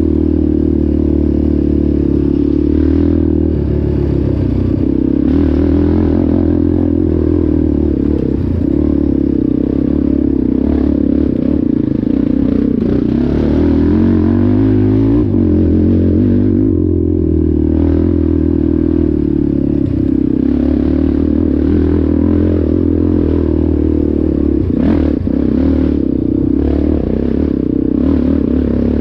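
ATV engine running under way at a fairly steady speed, its pitch dipping and rising again about halfway through, with rattling and clatter throughout.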